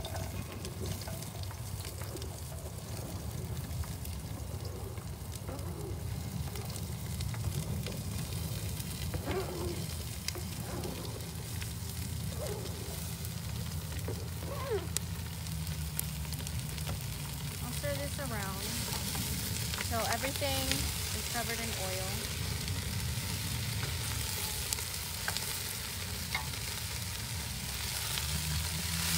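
Diced potatoes, carrots, onion and celery hitting hot oil in a stainless steel stockpot and sizzling, with a wooden spoon scraping them off a plastic cutting board and stirring them in the pot. The sizzle grows stronger about two-thirds of the way through.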